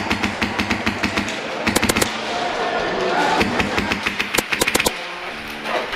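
Airsoft guns firing rapid bursts of shots, the densest bursts about two seconds in and again at about four and a half seconds, with scattered single shots around them.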